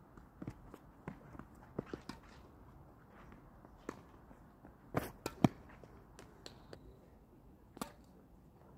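Tennis play on a hard court: short sharp pops of racket strings striking the ball and the ball bouncing, among lighter footstep scuffs. The two loudest pops come about five seconds in, half a second apart, and another sounds shortly before the end.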